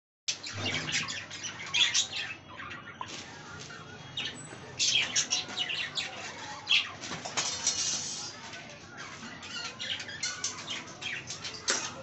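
A flock of budgerigars chirping and chattering, with many short calls overlapping.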